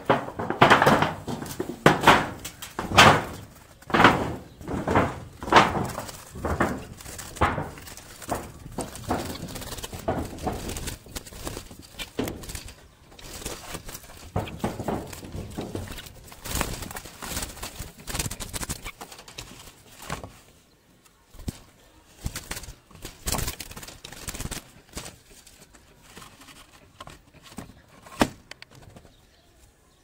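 Domestic pigeons cooing in a wooden loft. Loud thuds come about once a second through the first ten seconds or so.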